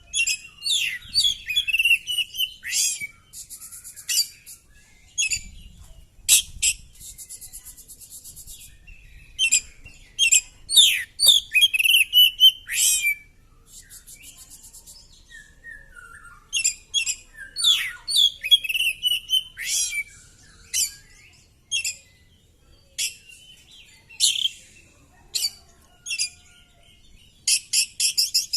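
Oriental magpie-robin (kacer) singing loudly: a varied run of sharp chirps, sweeping whistles and quick buzzy rattles in short phrases with brief gaps between them, the learned repertoire that Indonesian keepers call its 'materi'.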